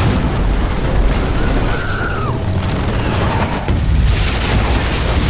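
Film battle sound effects: booming explosions over a continuous heavy rumble, with a falling whine about two seconds in.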